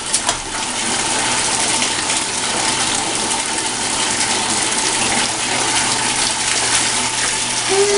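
Bath tap running into a bathtub: a steady, unbroken gush of water.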